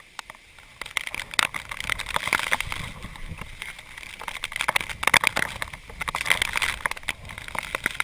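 Storm wind gusting across a camera microphone, heard as dense irregular crackling and popping with a low rumble. It starts about a second in and comes in surges, strongest around five to seven seconds in.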